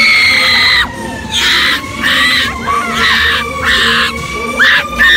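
Teenage girls screaming, about six long high-pitched screams in quick succession, each held for about half a second.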